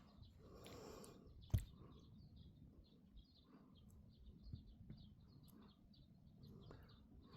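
Mostly quiet hand work on small plastic trim and bulb parts, with one sharp click about one and a half seconds in. Faint birds chirp in the background.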